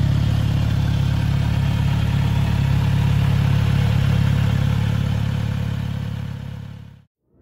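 A 2022 Kawasaki Z900RS's 948 cc inline-four engine idling steadily, fading out near the end.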